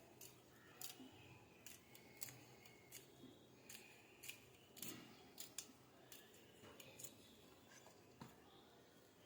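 Faint, irregular sharp clicks, roughly one every half second to a second, growing sparse near the end.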